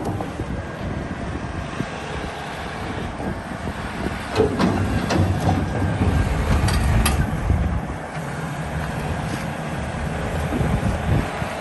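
Cat 374FL hydraulic excavator running, its diesel engine a steady low rumble that grows louder for a few seconds in the middle, with some metallic clicks and squeals over it.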